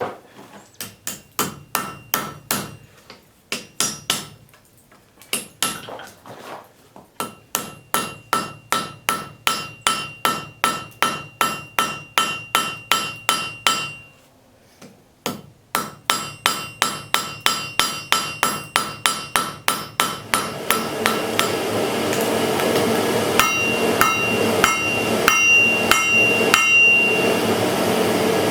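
Hand hammer striking hot iron on an anvil in steady runs of about three blows a second, each blow ringing, with two short pauses. About two-thirds of the way through, a steady rushing noise comes in under the blows.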